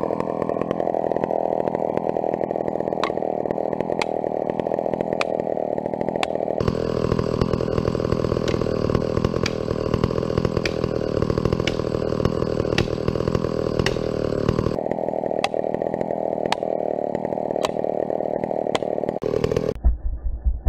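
Vintage McCulloch two-stroke chainsaw running steadily. Its sound turns abruptly brighter and fuller about a third of the way in and goes back about two thirds through. In the last second it cuts off to a low, rhythmic throbbing.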